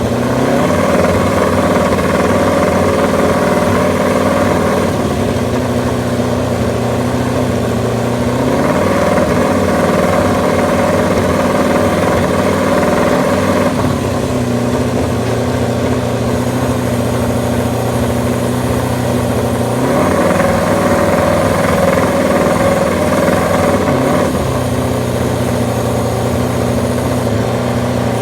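MotoGP racing motorcycle's four-cylinder engine running, held at a steady raised engine speed for about five seconds three times and dropping back to a lower idle in between.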